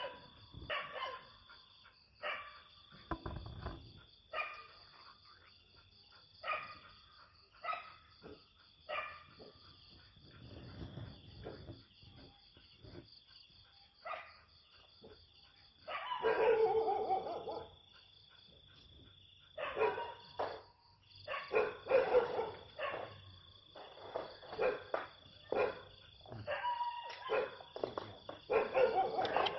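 Dog barking repeatedly in short volleys, over the steady high chirring of night insects.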